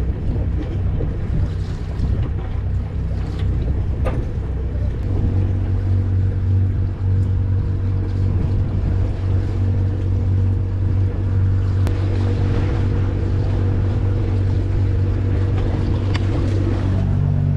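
A sailboat's inboard diesel engine running steadily as the boat motors along, with wind and water noise over it and a few light knocks on deck.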